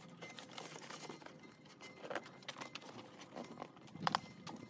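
Cardboard box and yellow webbing strap being handled as the box is strapped down to a wooden table: scattered light taps, scrapes and rustles, with one sharper click about four seconds in.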